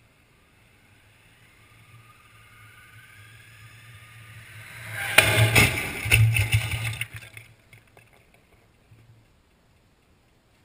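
A motorcycle nears with a rising whine and, about five seconds in, hits the side of a combine harvester with a loud crash of metal and plastic. A couple of seconds of clattering and scraping follow as the wrecked bike falls and comes to rest on the road, fading out near the end.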